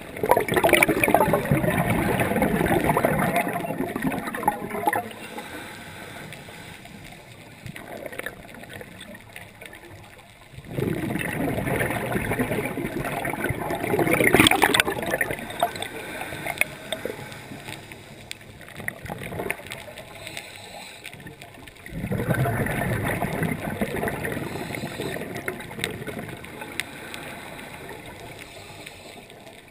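A scuba diver's exhaled bubbles rushing from the regulator past an underwater camera, in three long bursts about ten seconds apart, each one breath out. Between the breaths there is a quieter underwater hiss.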